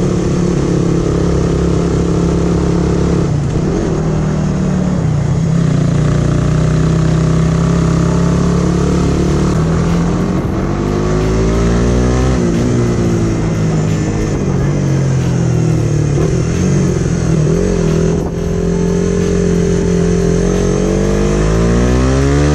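Motorcycle engine pulling up a steep hill under load, its pitch stepping as the rider downshifts with rev-matching throttle blips and then follows with gas. About halfway the revs dip and swing back up. Near the end they climb in a long rising sweep.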